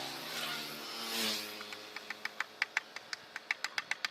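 A vehicle passes, its engine note falling as the noise swells and fades in the first second and a half. Then comes a run of sharp clicks, several a second.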